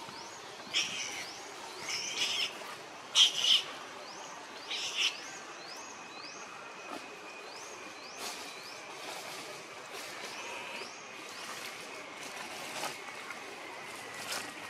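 Birds calling: a short rising high note repeated about twice a second, with several louder chirps in the first five seconds and a thin steady whistling tone in the second half.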